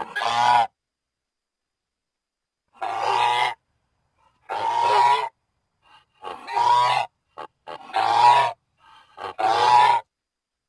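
A harsh, pitched animal call from a sound-effects recording, repeated about six times; each call lasts under a second, with about a second and a half between calls.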